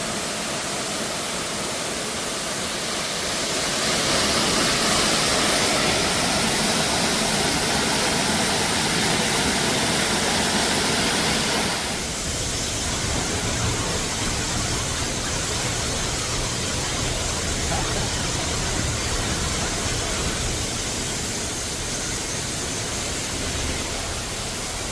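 Waterfall plunging into a cave, a steady rush of falling water. It gets louder about four seconds in and drops back suddenly at about twelve seconds.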